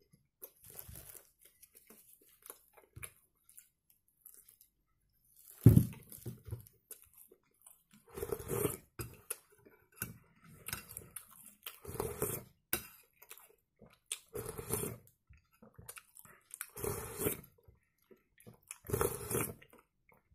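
Eating pea soup with a metal spoon from a glass bowl: slurps from the spoon about every two seconds, with chewing and small clicks of the spoon against the glass. A single sharp knock comes about six seconds in and is the loudest sound.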